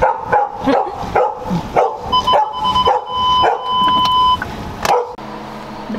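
A dog barking quickly and repeatedly, about two to three barks a second, with a steady high tone held for about two seconds midway. The barking stops about five seconds in, leaving a low steady hum.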